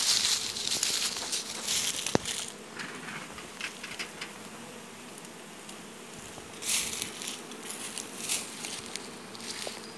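Honey bees buzzing in a steady hum over open hive boxes with their frames exposed. Bursts of rustling and crackling come and go over the hum in the first couple of seconds and again about seven seconds in, with a single sharp click about two seconds in.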